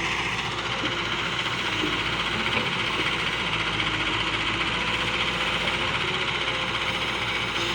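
Heavy diesel machinery running steadily: a continuous engine drone with no breaks or changes.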